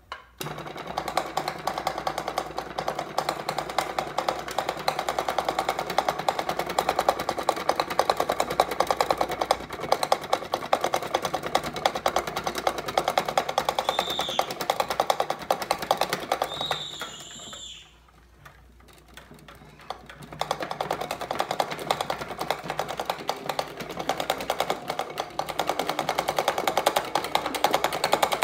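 Homemade free-piston Stirling engine (a can with a balloon diaphragm and a screw-and-nut piston on top) running, its piston clattering rapidly and evenly like a sewing machine. It stops for about two seconds a little past halfway, then starts again.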